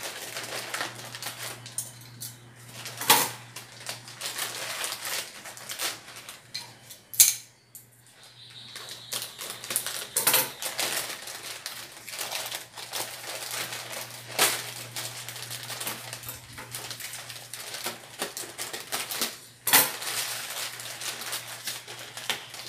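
Scissors snipping open a plastic courier mailer bag, then plastic packaging rustling and crinkling as it is torn open and the wrapped contents are pulled out, with sharp clicks and knocks now and then.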